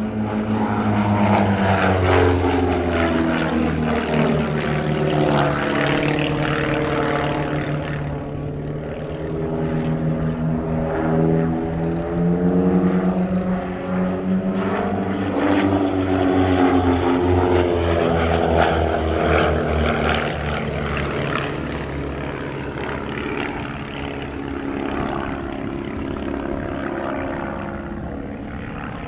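Piston engines and propellers of two Van's RV-7 and RV-8 aerobatic planes flying in close formation. The engine note falls and rises several times as they pass and manoeuvre, growing a little quieter near the end.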